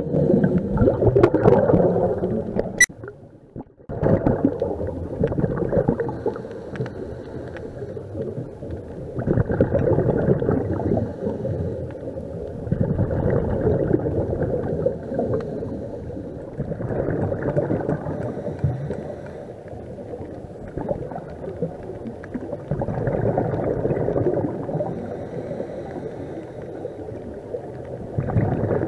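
Scuba diver breathing underwater through a regulator: exhaled bubbles gurgle in surges about every four to five seconds, quieter between breaths. A sharp click and a brief drop-out come about three seconds in.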